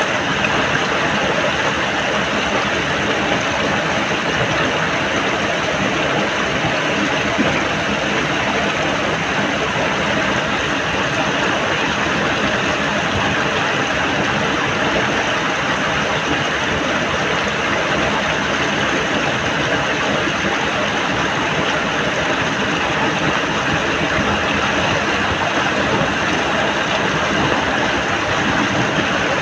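Muddy water rushing steadily through a cut dug in a mud bank, an unbroken rushing noise with no pauses.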